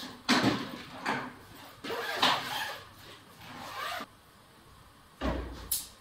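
A hard-shell wheeled suitcase being handled on a wooden floor: a series of knocks, scrapes and rattles as it is lifted and moved, then a low thud and a sharp click near the end.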